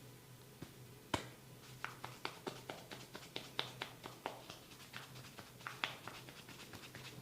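A barber's hands on a client's head during a massage, making a series of sharp, irregular clicks and taps, the loudest about a second in.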